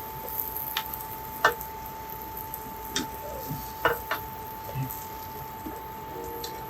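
A crunch wrap sizzling as it fries in butter in a pan, with a utensil knocking and scraping against the pan about five times as the wrap is turned over.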